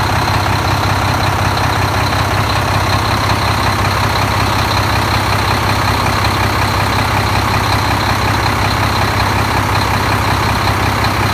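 Volvo D13 inline six-cylinder diesel truck engine idling steadily, running after a repair in which its double idler gear in the timing gear compartment was replaced.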